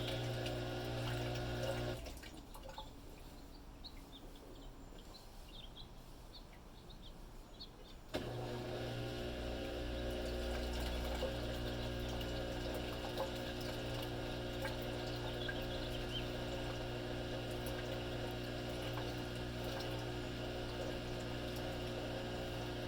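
Samsung WF45K6200 front-load washing machine running with a steady electric hum and water sounds; the hum cuts out about two seconds in and starts again about six seconds later, then holds steady.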